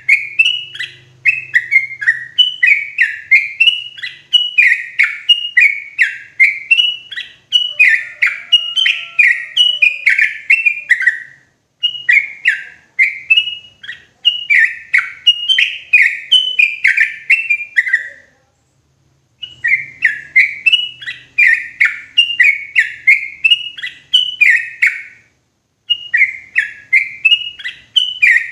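Yellow-vented bulbul (trucukan) singing loud and clear: a long run of short bubbling notes, about two a second, in phrases broken by a few brief pauses.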